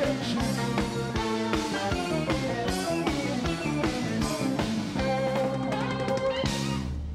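Live rock band playing the closing bars of a song: drum kit hitting a steady beat under electric guitar, with a big crash about six and a half seconds in before the band drops to a held final note.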